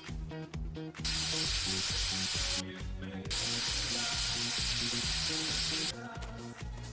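Two long bursts of spray hiss, the first about a second and a half, the second about two and a half seconds, over background music with a steady beat.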